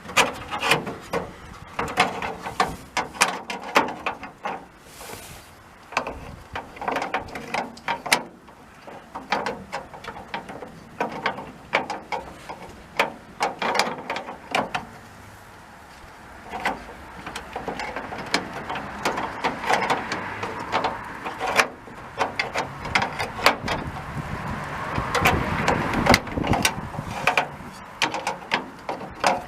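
Irregular metal clicks, knocks and rattles from a VW splitwindow bus's rear cargo door handle mechanism and rods as they are worked into place in the door, with scraping in the second half.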